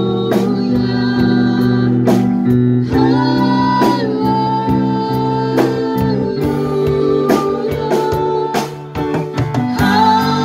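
Live band playing a slow song, with a woman and a man singing together over electric bass, piano and drums.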